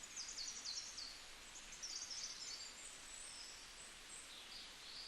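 Faint, high-pitched bird chirps, short repeated calls in clusters in the first second and around two to three seconds in, over a quiet outdoor background hiss.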